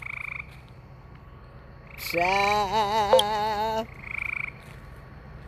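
Frogs calling in short buzzy trills, at the very start and again about four seconds in. Between them comes a long, wavering vocal sound, the loudest thing heard.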